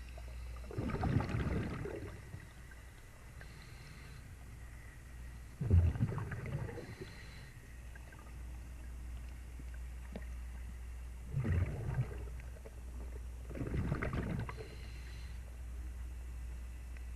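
Underwater, a scuba diver's exhaled breath bubbles out of the regulator in four bursts of about a second each, roughly every four to five seconds, over a steady low hum.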